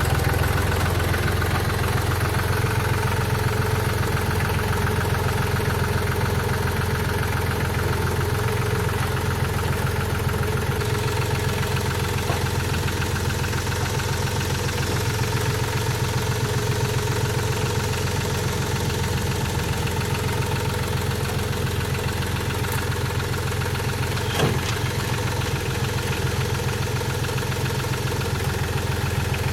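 An engine idling steadily, with one short knock about three-quarters of the way through.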